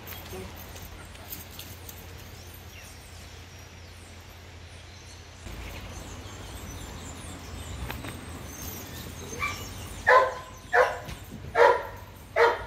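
A young German Shepherd barks four times in quick succession, about one bark a second, near the end; before that only faint outdoor background.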